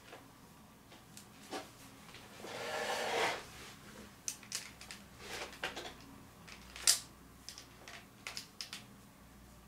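Tabby cat grooming itself, its tongue licking its fur in a series of small, irregular wet clicks. About three seconds in there is a longer soft rustle, and one sharper click near seven seconds is the loudest.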